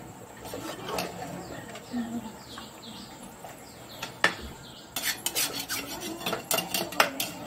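Steel ladle stirring chicken pieces in thick curry inside a pressure cooker pot, scraping and knocking against the metal sides. A few single knocks in the first half, then a quick run of clinks from about five seconds in.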